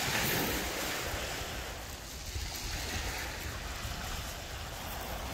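Sea surf washing onto a shingle beach, swelling up and easing off twice.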